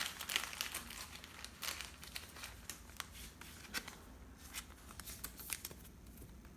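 Crinkling and light rustling of trading card pack wrappers and cards being handled: a scatter of small clicks and crackles, busier in the first half and sparser near the end.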